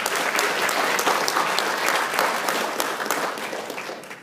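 Congregation applauding: a dense patter of many handclaps that fades away near the end.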